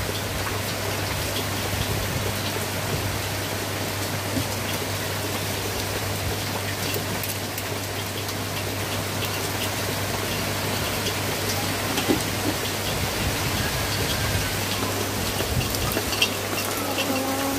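Heavy rain falling steadily, with many small drops ticking onto nearby surfaces.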